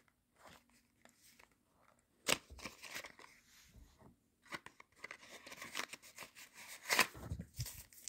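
A small cardboard box being opened and handled, with its paper leaflet rustling: scraping and crinkling of card and paper, broken by a few sharp clicks, the first about two seconds in and the loudest near the end.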